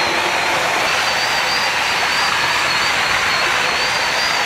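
Electric drill-type paddle mixer running steadily, churning a large pot of milkshake with ice, its motor giving a high, slightly wavering whine.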